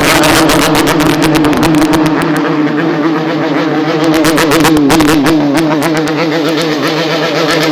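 Motorcycle engine running, its revs wavering up and down, with music playing along with it.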